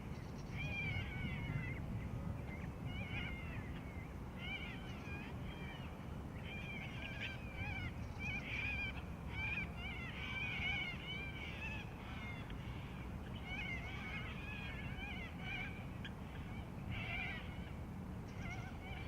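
Many birds calling at a lakeside, short high chirping notes overlapping almost without a break, over a steady low rumble.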